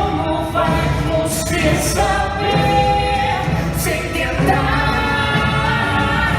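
A song playing: singing voices over instrumental accompaniment.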